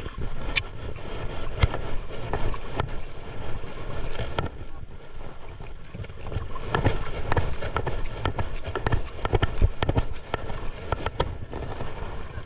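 Wind buffeting the microphone and water moving around a small fishing boat, with scattered sharp knocks and clicks throughout.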